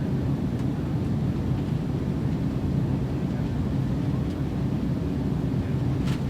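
Airplane cabin interior: a steady low rumble of engines and airflow during the takeoff climb, with a brief click about six seconds in.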